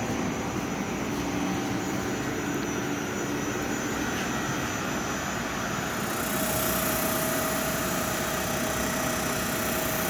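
Aitalmac CNC saw running with a steady mechanical hum; about six seconds in, a high hiss and a steady whine join it.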